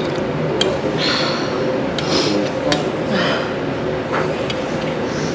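Noodles of a spicy seafood noodle soup being slurped and eaten, in three short slurps about a second apart, with a few sharp clinks of utensils against the bowl, over a steady murmur of background voices.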